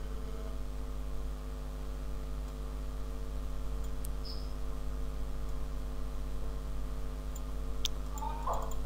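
Steady low hum with a few faint computer mouse clicks, one about four seconds in and a couple near the end.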